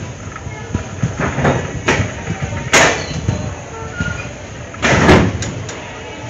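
Express passenger train running through a station at speed, heard from aboard a coach: a steady running rumble broken by sharp, irregular clanks, loudest about three and five seconds in.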